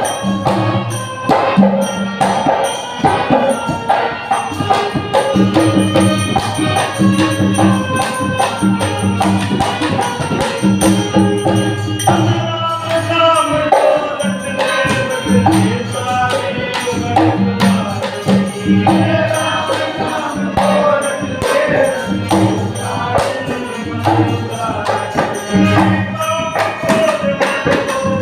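Devotional bhajan music: a voice singing over steady hand percussion, with repeated low notes keeping the beat.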